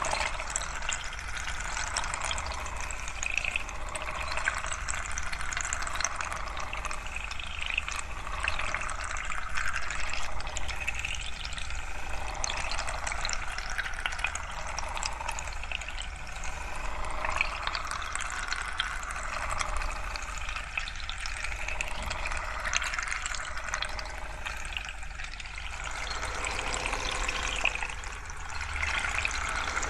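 Close-miked ASMR trigger sounds: a dense, continuous fine crackling with gentle swells and no pauses, over a faint steady low hum.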